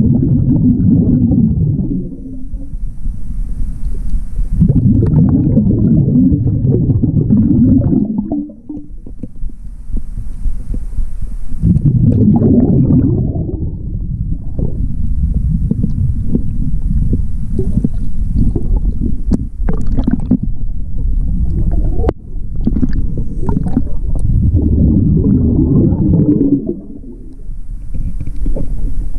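Scuba diver breathing through a regulator underwater: each exhalation is a low, bubbling rumble of a couple of seconds, coming about every six seconds, with a faint hiss of inhalation between them. A few sharp clicks come near the middle.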